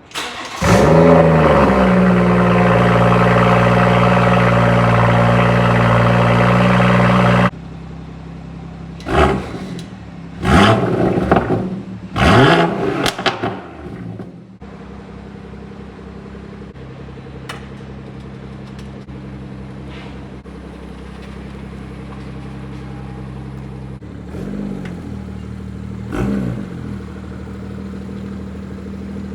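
BMW 440i's turbocharged inline-six starting through an AWE catback exhaust with its resonators removed: it fires and holds a loud high idle for several seconds, then drops suddenly to a lower idle. Three quick revs follow, then a steady idle with two light blips near the end.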